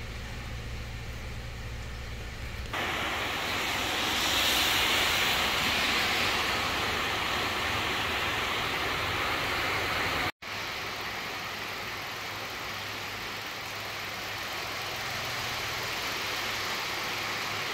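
Steady rain, an even hiss, taking over about three seconds in. Before that, a low steady hum inside the car.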